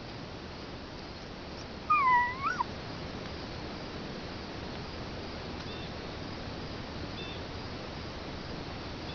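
A single short, high animal call about two seconds in, dipping and then rising sharply in pitch. Later come a couple of faint, brief chirps over a steady outdoor background.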